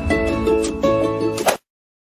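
Channel intro music with sharply struck notes that cuts off abruptly about one and a half seconds in, leaving silence.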